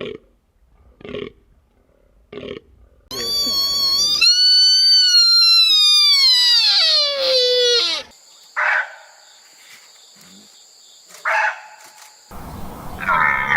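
Deer calls: three short bleats about a second apart, then a loud, long, high call lasting about five seconds that slides steadily down in pitch, followed by two short calls over a steady high whine and another call near the end.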